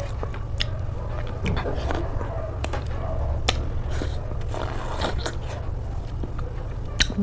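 Close-miked eating: chewing and biting with irregular sharp mouth clicks and smacks, over a steady low hum.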